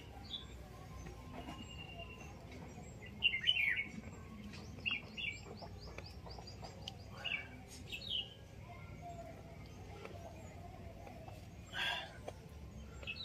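Birds chirping intermittently outdoors: short, high chirps and calls scattered through, the loudest cluster a few seconds in.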